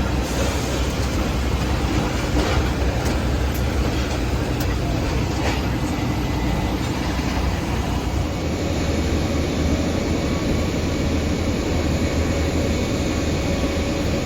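Steady low rumble of an Airbus A320 cabin after landing, with the aircraft's engines and air system running. A few faint clicks come in the first seconds.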